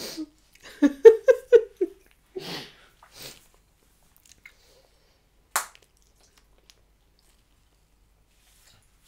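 A person chewing Hubba Bubba bubble gum with mouth noises: a quick run of five short, muffled voice sounds in the first two seconds, a couple of soft breathy noises, then one sharp snap about five and a half seconds in.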